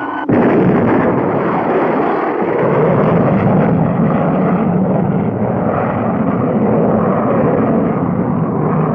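Spaceship rocket engines at blast-off, as a cartoon sound effect. The sound cuts in suddenly just after the start and continues as a loud, steady rushing noise.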